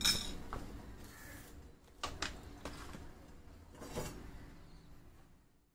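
About half a dozen light clinks and knocks, spread over the first four seconds and growing fainter: a metal teaspoon and small glassware (a glass tea cup and glass saucer) being handled and set down on a kitchen counter, along with the powder pouch being put down.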